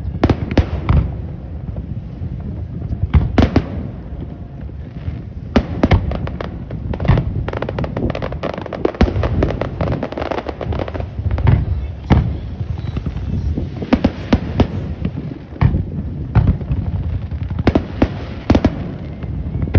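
Aerial fireworks display going off: a dense, irregular run of sharp bangs and cracks, several a second at times, over a continuous low rumble of bursting shells.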